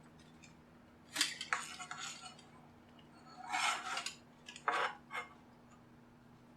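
Small hand tools scraping and clicking against a JBL Flip 2 speaker's casing in three short bouts as it is pried apart.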